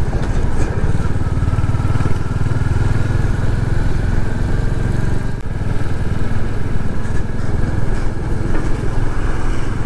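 Royal Enfield Hunter 350's single-cylinder engine running steadily under way, with a rapid, even exhaust beat.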